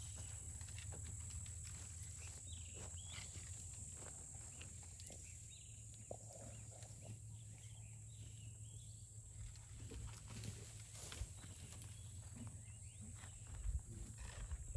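Elephants browsing a leafy thorn bush: scattered rustling of leaves and small crackles of twigs as their trunks pull and strip the branches, over a low steady hum.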